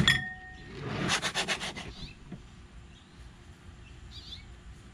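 Aluminium pizza peel knocking against the board with a short metallic ring, then a quick run of rasping scrapes as it is pushed under the pizza dough. A bird chirps briefly near the end.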